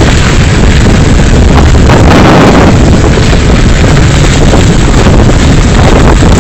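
Loud wind buffeting the microphone from a moving vehicle, over the low rumble of the vehicle driving along a rough unpaved road.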